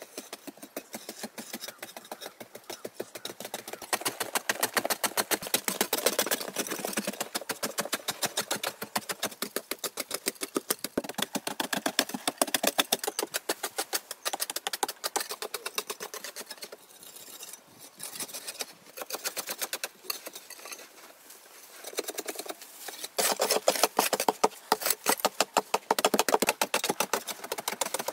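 Hand digging tools chopping and scraping into hard earth, many quick strikes a second, in bouts that swell and fade.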